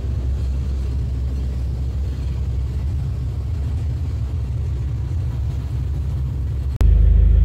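Passenger ferry's engines running at cruising speed, a steady low drone mixed with the rush of the churning wake. Near the end it jumps suddenly to a louder low rumble.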